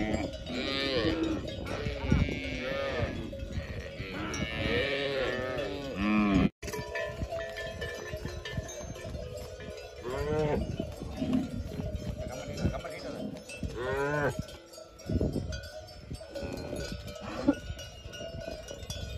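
Many cattle bells on a walking herd of Pulikulam cattle, clanking and ringing irregularly over one another. The sound cuts out for a moment about six seconds in, then the bells carry on more thinly.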